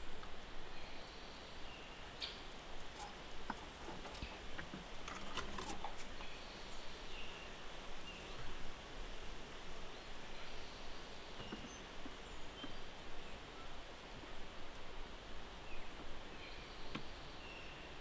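Outdoor forest ambience with scattered faint bird chirps, and a cluster of small sharp clicks and taps a few seconds in from red squirrels handling and nibbling nuts on a wooden feeder.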